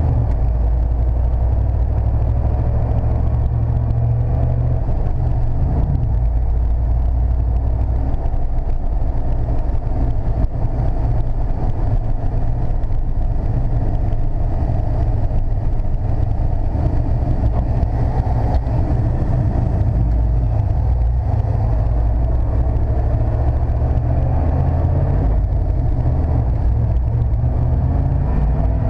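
Steady low rumble of engine and road noise inside the cab of a 1995 Chevrolet C/K 1500 pickup driving along a road.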